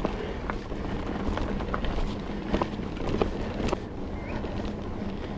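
Trek Fuel EX 5 full-suspension mountain bike rolling over a dirt trail: steady tyre rumble with scattered clicks and rattles, and a faint steady hum.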